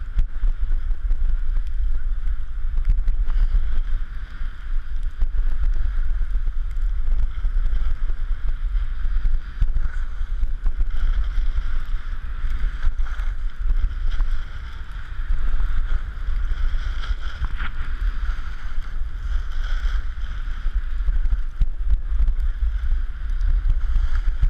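Wind rumbling on the microphone of a camera carried downhill on snowblades, over the steady hiss of the short skis sliding on snow.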